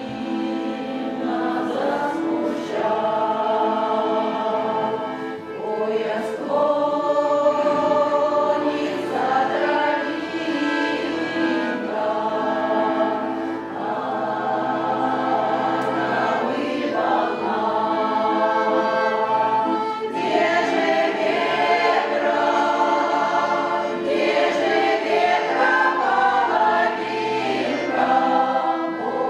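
Russian folk-song choir singing, with long held notes.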